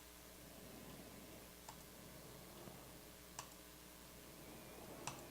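Computer mouse clicking three times at an even pace, about every second and a half to two seconds, over near silence, as a randomize button is pressed again and again.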